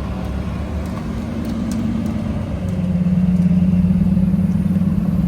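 A car engine running at a steady low pitch, growing louder about halfway through as it comes closer or works a little harder.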